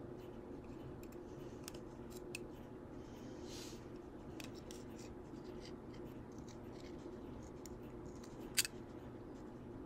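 Faint scattered clicks and snips of small pliers or wire cutters gripping and working thin wire, with one sharper click near the end, over a steady low room hum.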